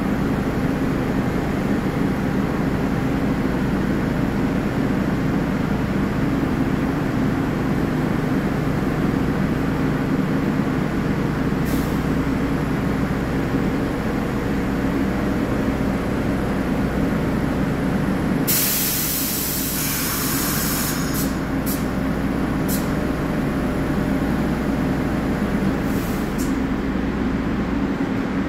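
R62A subway train standing at a station platform, its equipment humming steadily. About two-thirds of the way through, a burst of released air hisses for a second or so, followed by a few sharp clicks.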